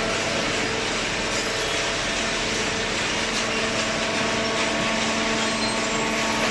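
A hydraulic cardboard baler running steadily: an even machine noise with a constant hum, with no strokes or knocks.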